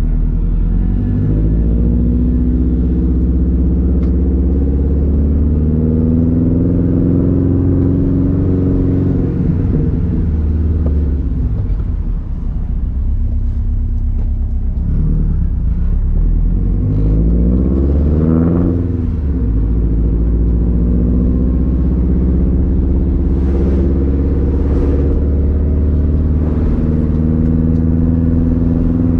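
Turbocharged Subaru STI EJ flat-four running through an unequal-length exhaust with a loud rumble while driving. The engine rises in pitch under acceleration and drops back at gear changes, most clearly about twelve and nineteen seconds in.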